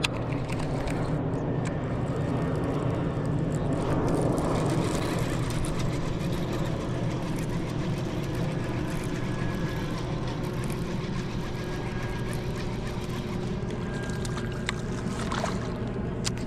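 A steady low mechanical hum at a constant pitch over a wash of noise, swelling slightly about four seconds in, with a few light clicks near the end.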